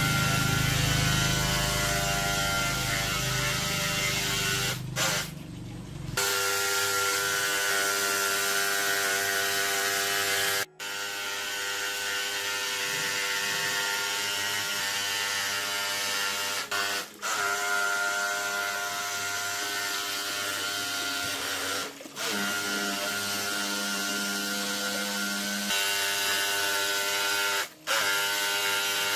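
A small electric power tool's motor running steadily in a series of short segments, cut off abruptly several times, with the pitch shifting slightly between segments.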